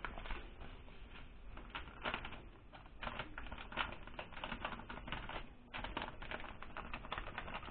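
Faint, irregular crackling and ticking of a paper seasoning sachet being handled and shaken, with dry spice sprinkling onto raw pork ribs in a plastic bowl.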